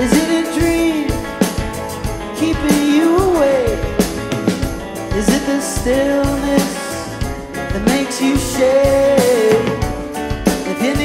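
Rock band playing live: drum kit keeping a steady beat under guitars, bass and keyboards, with a melody that slides between notes over the top.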